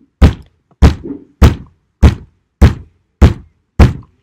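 Bare hand striking the spine of a Kizlyar Delta Tactical fixed-blade knife, batoning the blade down into a block of wood: seven sharp thuds at an even beat, a little over half a second apart.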